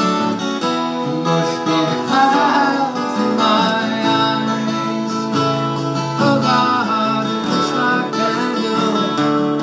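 Steel-string acoustic guitar strummed in a steady accompaniment, with a man's voice singing a few drawn-out notes over it.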